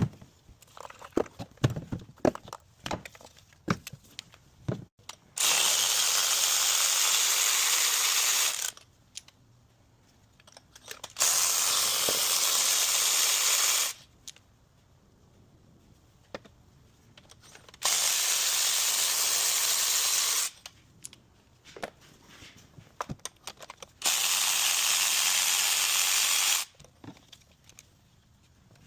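Four long hissing blasts, each about three seconds, with light clicks and rattles of hand tools before and between them.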